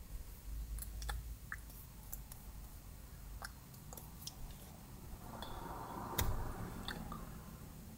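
Scattered light clicks, taps and mouth noises from two people signing to each other in silence, their hands and clothing moving. A soft rustle swells around six seconds in, with a thump in the middle of it.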